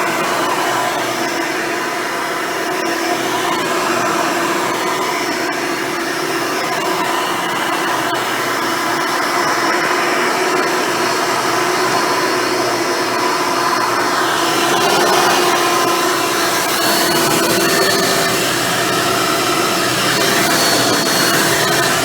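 Hoover Elite upright vacuum cleaner with a dual-row brush roll running steadily: a rush of air with a steady whine over it, its tone shifting a little about two-thirds of the way in.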